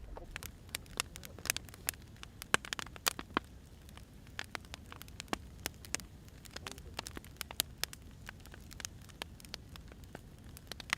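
Firewood burning, crackling with irregular sharp pops and snaps.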